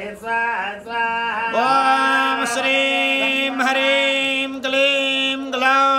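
A man chanting a Sanskrit mantra in a sung, drawn-out voice, holding long steady notes across a few phrases.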